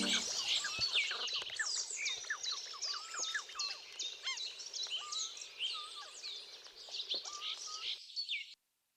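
A chorus of many small birds, all chirping and whistling at once, growing gradually fainter and then cut off abruptly near the end. A held music chord dies away right at the start.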